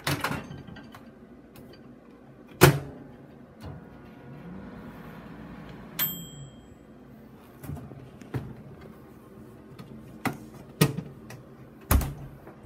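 Countertop microwave oven being handled: sharp knocks and clicks of its door and control buttons, the loudest about two and a half seconds in, and one short electronic beep about six seconds in.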